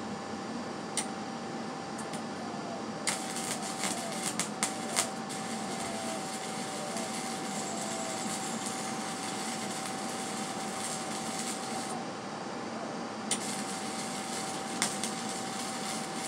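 Wire-feed arc welder laying tack welds on a go-kart frame. The arc strikes about three seconds in with a few pops and crackles, then runs as a steady sizzling hiss for about nine seconds and stops. It strikes again for a few seconds near the end.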